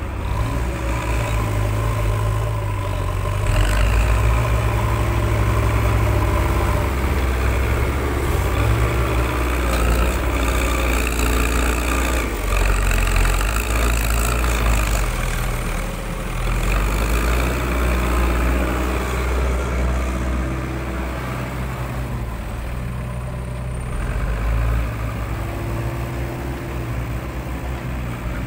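Diesel engines of backhoe loaders running and revving as they dig and push soil. The engine note rises and falls with a deep, steady rumble underneath.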